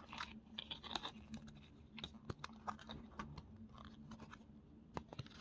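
Faint handling noise: scattered small clicks and light crinkles as earphone parts and their packaging are handled, over a faint low hum.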